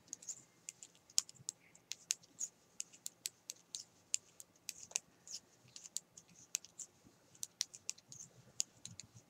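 Metal knitting needles clicking lightly against each other as stitches are worked, several irregular clicks a second.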